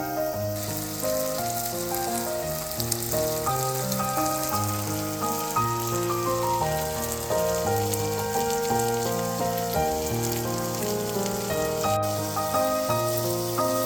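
Chicken frying in a pan with a steady crackling sizzle that starts about half a second in, under background music with a melody.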